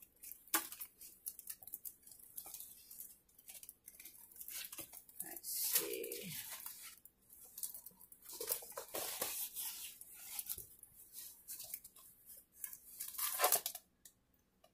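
Rustling and crinkling of a diamond painting canvas and its plastic cover film as the canvas is unrolled from its tube and smoothed flat, in irregular bursts, loudest about thirteen seconds in.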